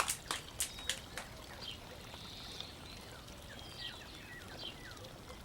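Faint squeaks and scratches of a colouring marker on paper, with a few sharp clicks in the first second.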